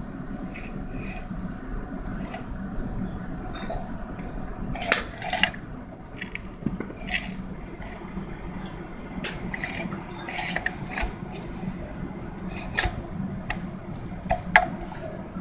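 Irregular metallic clinks and taps, some sharper and louder than others, over a steady low hum.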